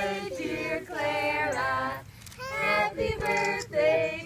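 Women and children singing together, with long held notes and short breaks between phrases.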